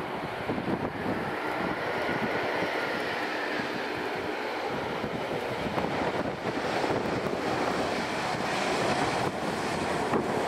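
Jet noise from an Airbus A320-214's CFM56 engines as the airliner rolls out on the runway after landing: a steady rushing that grows a little louder toward the end as it comes closer. Wind buffets the microphone throughout.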